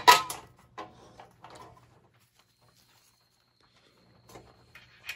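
Light clicks and knocks of small metal hardware being handled: a bolt and shim being fitted into a steel bumper bracket. A sharper click right at the start, a few faint knocks about a second in, a quiet stretch, then more small clicks near the end.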